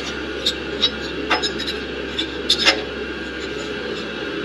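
Hand fumbling behind a boiler's recirculation pump, working its rear retaining clip into place by feel: scattered light clicks and knocks of plastic and sheet-metal parts, over a steady low hum.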